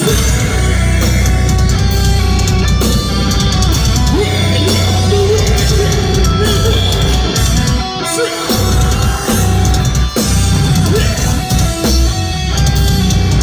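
Metalcore band playing live at full volume: heavy distorted guitars, bass and pounding drums, with a brief break in the low end about eight seconds in.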